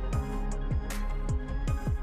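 Background music with a busy beat: deep drum hits that drop in pitch, several a second, under bright cymbal strikes.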